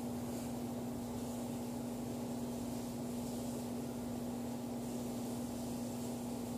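A steady machine hum holding one low tone, with a faint even hiss.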